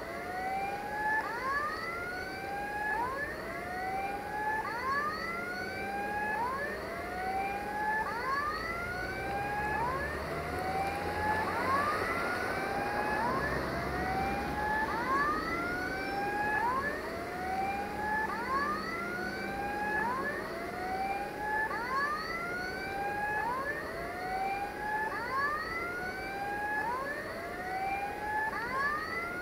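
An electronic siren sounding a rising wail over and over, about every 1.3 seconds. An engine runs low underneath for several seconds around the middle.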